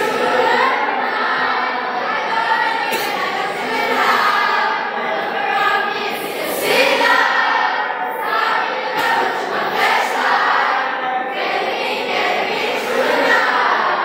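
A group of young voices singing together.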